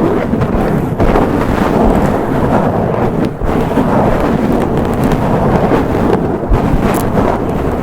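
Long fingernails scratching fast and hard directly on a microphone (Zoom H6), giving a loud, continuous, crackling rasp with a few brief dips.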